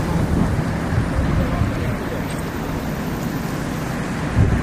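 Steady road and traffic noise from a moving vehicle, an even low rumble.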